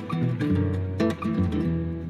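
Background music: plucked acoustic guitar over a bass line, with a steady beat.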